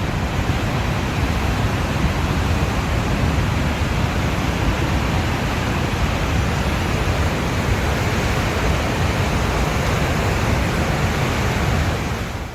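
Floodwater from an overflowing creek rushing steadily across a washed-out road, with a heavy low rumble; it stops abruptly at the end.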